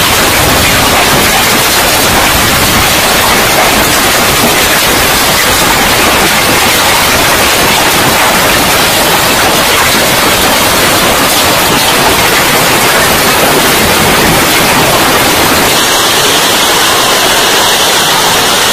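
Heavy hail pelting roofs and ground: a loud, dense, unbroken hiss. Its tone changes slightly about sixteen seconds in.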